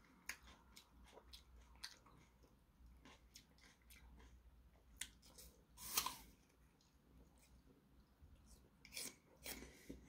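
A person biting into a slice of raw apple with the skin on: one sharp crunch about six seconds in, then crisp chewing near the end. Small mouth clicks are scattered before the bite.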